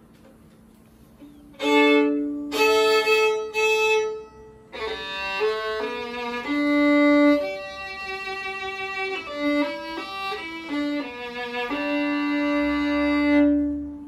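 Violin bowed acoustically, with its wireless pickup switched off, giving its natural unamplified sound. After a second and a half of quiet come a few strong separate strokes, then a flowing melodic passage that ends on a long held note.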